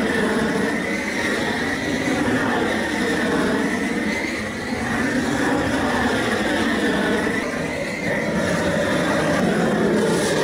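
Propane roofing torch burning with a steady rushing flame as it heats the underside of a torch-down roofing roll to melt it onto the roof.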